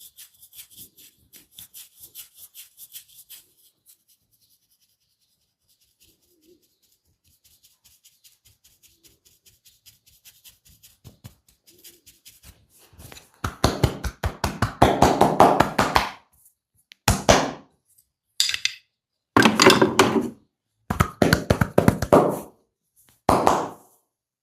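Percussive massage strokes on a person's body, fast rhythmic strikes. Faint quick light tapping comes first. About halfway through the strikes turn loud: a run of about three seconds, then several shorter bursts near the end.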